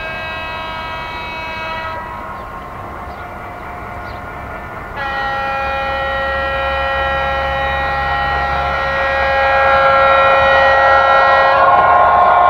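Bachmann Class 66 model diesel locomotive's sound decoder sounding its two-tone horn: one note that stops about two seconds in, then a long blast from about five seconds in that switches to the other, louder note near the end. A low diesel engine rumble runs underneath, growing louder as the loco draws near.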